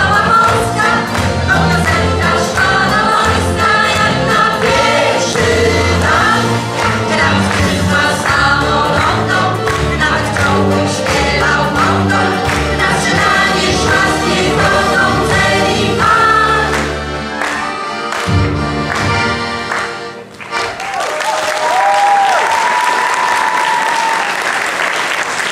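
Mixed amateur choir singing in Polish with accordion and guitar accompaniment; the song ends about 20 seconds in and the audience breaks into applause.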